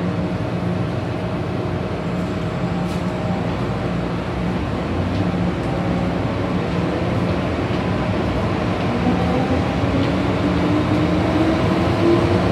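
Inside an MTR M-Train electric subway car in motion: a steady rumble of wheels and running gear with a whine from the traction equipment, the whine rising in pitch over the last few seconds.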